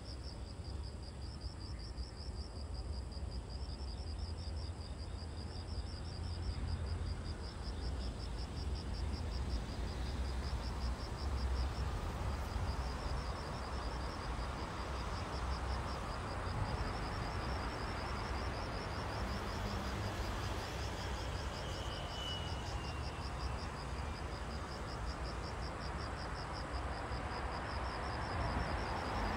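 Insects chirping in an even, rapidly pulsing high-pitched rhythm, over a steady background hiss and low rumble.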